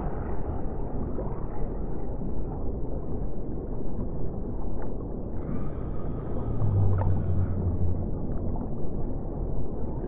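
Low, muffled water noise, most of it deep in pitch, like an underwater soundscape. A low steady hum joins it for about two seconds, starting about six and a half seconds in.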